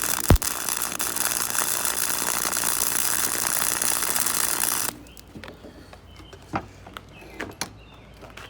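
A cheap MIG welder's arc crackling steadily while running a weld bead on steel, cutting off suddenly about five seconds in as the weld ends. A loud short sound with a falling pitch comes just after the start, and a few light knocks follow once the arc stops.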